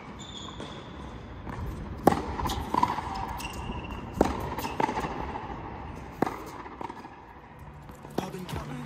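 Tennis rally on an outdoor hard court: sharp pops of the ball struck by racquets, the loudest three about two seconds apart, with quieter knocks between them and a couple of brief high squeaks.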